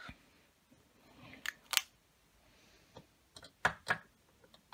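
Small plastic clicks and taps of lipstick tubes being handled: a cap clicked shut and tubes knocking against a clear acrylic makeup organiser. There are two clicks about a second and a half in, then a quicker run of four or five near the end.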